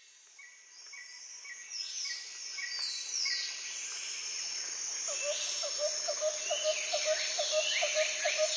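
Rainforest ambience fading in: many birds calling over a steady high insect drone. From about five seconds in, a lower chirping call repeats three or four times a second.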